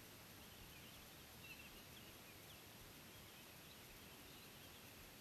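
Near silence: faint outdoor background with a few faint, short, high bird chirps scattered through it.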